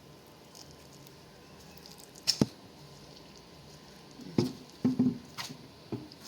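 Kitchen utensils knocking against a mixing bowl, with soft squishing as hot water is worked into wheat flour: one sharp knock a couple of seconds in, then a run of lighter knocks and thuds near the end.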